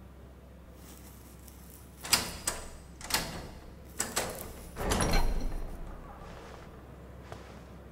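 A heavy cell door being unlocked and opened: a run of sharp knocks and clunks, then a longer, lower scraping sound about five seconds in, followed by a few fainter knocks.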